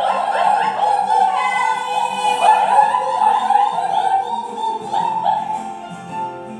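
Upbeat children's song sung by women with keyboard accompaniment and a steady beat.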